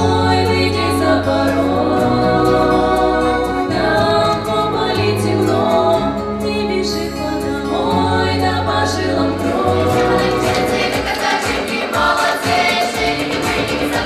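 Female youth folk-song ensemble singing a Russian folk-style song as a choir, over instrumental accompaniment with held bass notes.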